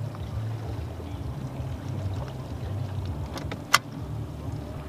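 A steady low hum with light water noise on the open water, and one sharp knock a little before the end.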